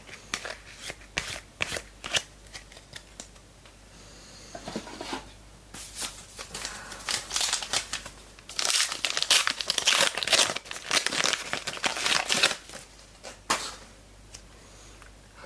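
A foil trading-card pack crinkling and tearing open, loudest in the middle stretch. Light clicks and taps of cards being handled come before it.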